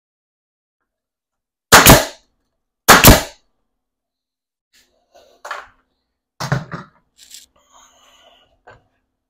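Two loud, sharp bangs about a second apart, followed by several lighter knocks and clatter: impacts from work on wooden layout framing, such as lumber being fastened or handled.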